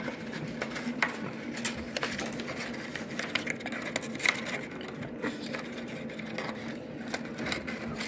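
Yellow-naped Amazon parrot chewing and tearing a cardboard paper towel roll with its beak: irregular crackling and clicking, over a steady low hum.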